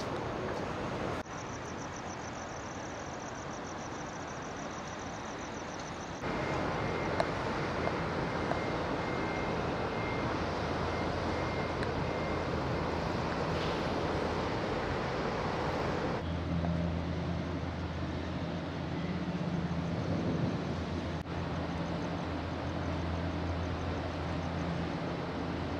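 Outdoor ambience beside a large moored car ferry: a steady rush of noise, with a steady low hum from the ship's machinery running at the pier, strongest in the last ten seconds.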